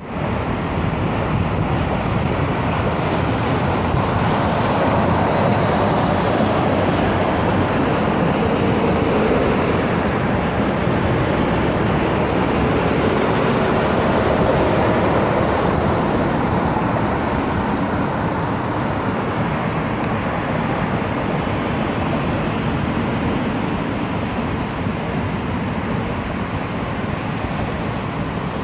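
Steady roar of highway traffic with no clear engine note, swelling and easing a few times.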